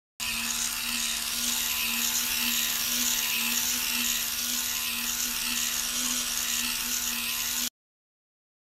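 Small plastic-geared DC motor of a Lego Technic biped robot whining steadily as it drives the leg mechanism, the sound swelling about twice a second with the walking cycle. It cuts off suddenly near the end.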